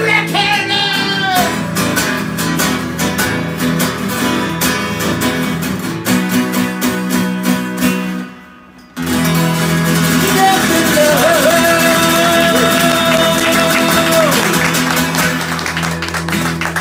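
Two acoustic guitars strummed with singing. About eight seconds in the music breaks off briefly, then comes back on a loud chord under one long held note that ends near the end.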